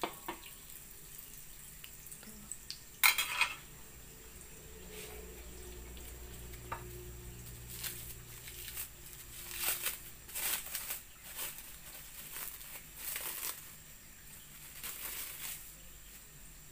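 Breaded ice cream ball deep-frying in hot oil in a metal wok: irregular bubbling and crackling of the oil, with a metal spatula knocking and clattering against the wok about three seconds in, the loudest sound.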